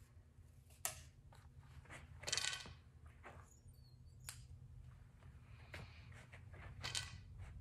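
Faint clicks and rustles of an arrow being loaded onto a compound bow: the shaft slid into the whisker biscuit rest and the nock snapped onto the string, with a few sharp clicks and one short rustle over a low steady hum.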